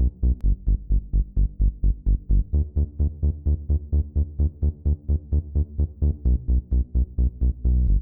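Electronic music with a steady pulsing bass beat, about four beats a second.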